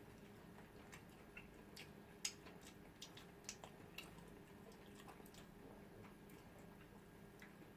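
Quiet eating sounds: scattered soft mouth clicks and smacks of chewing, most between about one and four and a half seconds in, the sharpest a little over two seconds in, over a low steady room hum.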